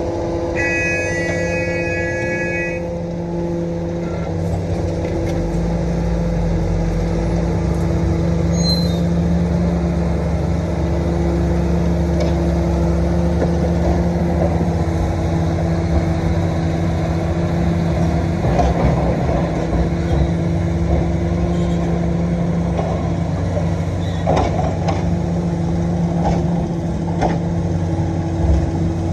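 Komatsu PC450-8 excavator's six-cylinder diesel engine running steadily at working revs, with a few knocks as it works soil and rock. A brief high tone sounds near the start.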